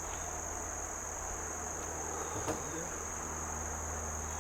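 A steady, high-pitched insect chorus drones on without a break, with one faint tap about two and a half seconds in.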